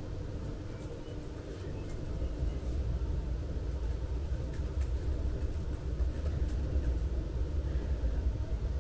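Low, steady rumble of distant city traffic, growing a little louder about two seconds in.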